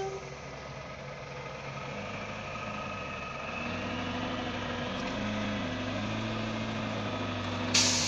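Heavy diesel engine of logging machinery running, its pitch stepping up and down as it works under load, with a sudden loud hiss near the end.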